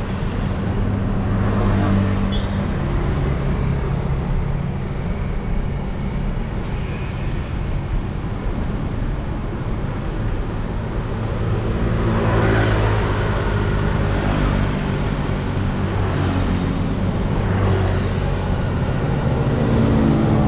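Road traffic: motorbike and car engines running and passing, with louder passes about midway and again near the end.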